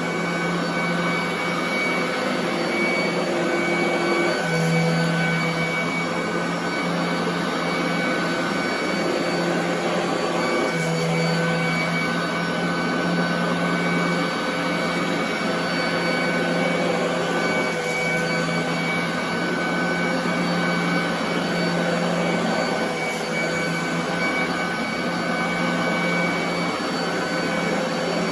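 Royal commercial vacuum cleaner running steadily on carpet: a constant motor hum with a higher whine over the rush of air.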